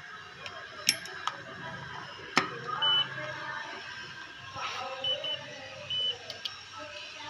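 INNO View optical-fibre fusion splicer: sharp clicks in the first couple of seconds as its fibre clamps and lid snap shut, then the machine beeps at key presses. There is a short high beep about three seconds in, then two quick beeps and a longer one near the end.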